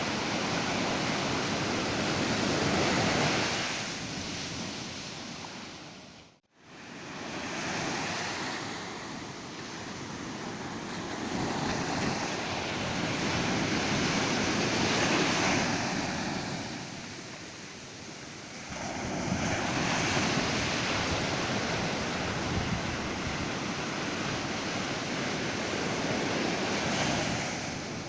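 Ocean surf breaking on a beach, waves swelling and ebbing every several seconds. The sound drops out briefly about six seconds in.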